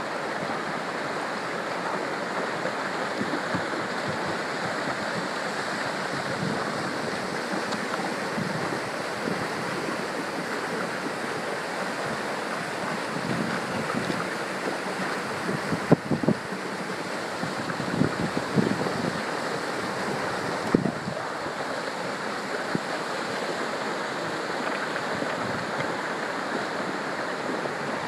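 Muddy flash-flood water rushing down a paved street, making a steady, even rushing noise. A few short low thumps come through about halfway in.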